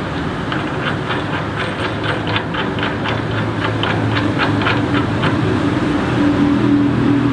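An engine running steadily, a low hum with a rapid, irregular ticking clatter over it, growing a little louder toward the end.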